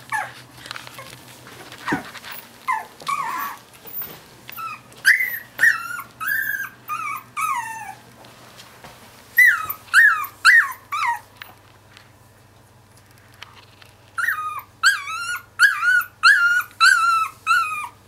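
Two-week-old Finnish Lapphund puppy complaining in three bouts of short, high-pitched whining squeals, two or three a second, each cry dropping in pitch at its end.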